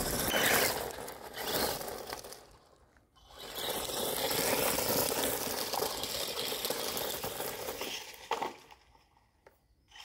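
Traxxas E-Revo brushless RC truck driving over loose gravel, its tyres crunching and scattering stones in spurts. The sound drops out briefly about three seconds in, runs steadily again, gives one sharp knock about eight seconds in, then fades near the end.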